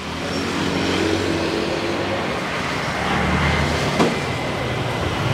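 Street traffic with a vehicle engine running close by, its level rising at the start. There is a single sharp click about four seconds in.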